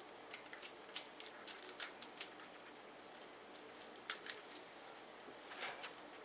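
Faint, scattered clicks and taps of hard parts being handled: the mounting bracket being fitted onto a Corsair H70 liquid cooler's pump block, with the sharpest clicks about four seconds in and again shortly before the end.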